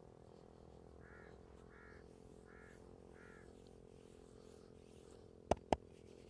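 A crow cawing four times in two pairs over a faint steady hum, then two sharp smacks in quick succession near the end.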